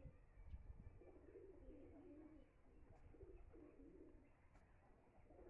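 Faint cooing of a dove: a run of soft, low calls repeating, over a low rumble.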